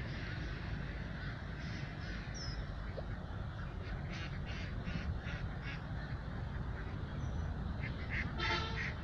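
Birds calling: a run of short calls about halfway through and one longer, nasal-sounding call near the end, over a steady low background rumble.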